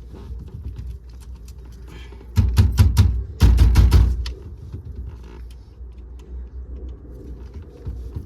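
Two short bursts of rapid metallic knocking and rattling, each under a second, the second following a moment after the first, as a Mk3 Supra's steering wheel is worked loose from its column.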